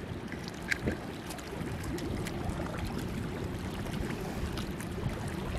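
A car's engine running low and steady as it rolls in, with a few faint light ticks scattered over it.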